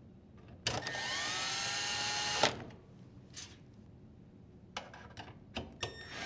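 Drill driver with a 5/16 nut driver bit driving a screw: the motor spins up with a rising whine, runs for about two seconds and stops with a sharp knock. A few light clicks follow, then the drill starts again right at the end.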